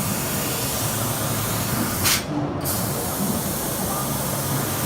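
Steady hiss of a 1500 W laser cutting machine cutting 2 mm brass, over a low machine hum. About two seconds in the hiss briefly surges, then cuts out for about half a second and resumes.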